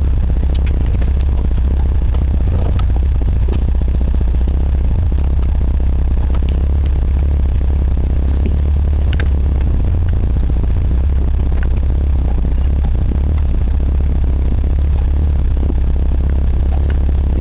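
A vehicle's engine running steadily, heard from inside the cab as a loud, low drone, with scattered rattles and knocks from the body as it drives a rough dirt track.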